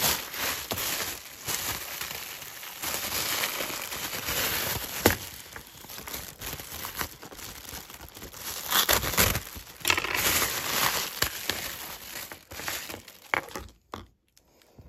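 Thin plastic bag crinkling and rustling as hands work it open, with many sharp ticks; it stops near the end.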